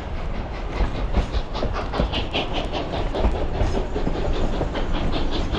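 Durango & Silverton narrow-gauge passenger car rolling along the rails, with a steady low rumble and a quick run of sharp high clicks of the wheels on the track in the middle.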